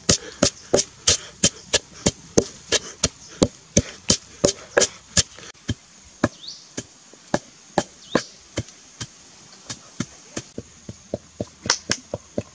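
A pestle pounding coarse salt and chilies in a wooden mortar, with steady knocks about three a second that grow quieter about halfway through.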